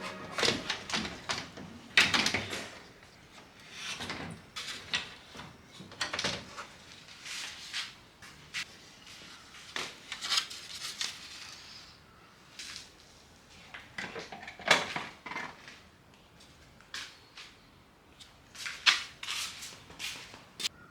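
Irregular clicks and knocks of plastic trim and hand tools being handled while the front grille is taken off a car.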